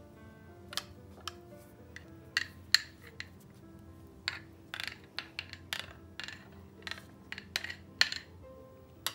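A metal spoon scraping and clinking against a small bowl again and again as thick garlic yogurt is scooped out onto the dumplings. Soft background music runs underneath.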